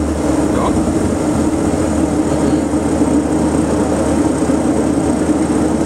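Twin turboprop engines running at a steady drone, heard inside the cockpit, with a strong low hum under an even midrange tone. The right engine is being taken through a propeller-feathering test.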